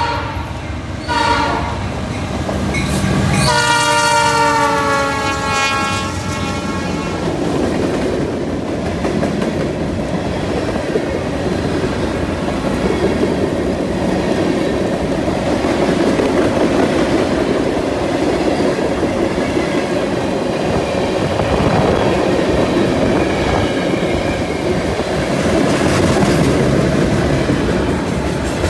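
Canadian National diesel freight locomotives sound their horn, a short blast then a longer one of a few seconds that sags slightly in pitch as they pass. Then a long string of freight cars rolls steadily by, wheels clattering over the rail.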